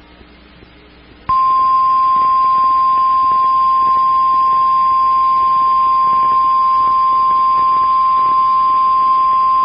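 NOAA Weather Radio warning alarm tone, the 1050 Hz signal, sounding as a single loud, steady high tone from about a second in. It signals that a warning broadcast is about to follow.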